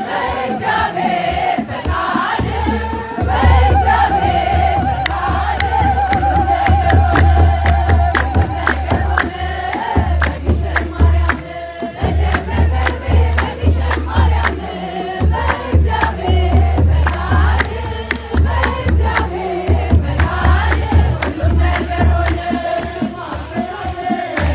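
A crowd singing an Ethiopian Orthodox mezmur (hymn) together, with rhythmic hand clapping over a deep, regular low beat. A long wavering held voice rises above the singing from about three to nine seconds in.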